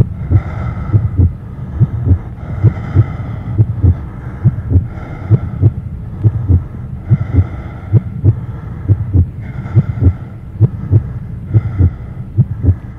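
Heartbeat sound effect: a steady lub-dub double thump, a little over one beat a second, under a soft hiss that swells and fades every two to three seconds.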